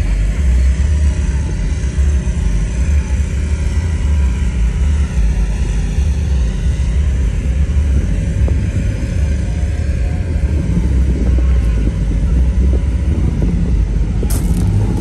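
Wind buffeting a phone microphone outdoors: a loud, uneven low rumble.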